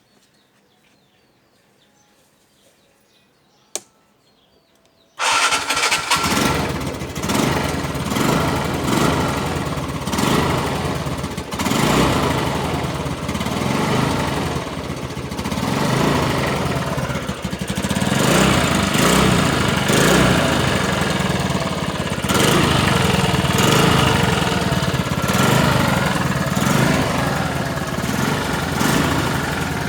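TVS Ntorq 125 scooter's single-cylinder engine starting about five seconds in, after a single click, and running with the throttle opened and closed repeatedly so the pitch rises and falls: a test run on fresh engine oil.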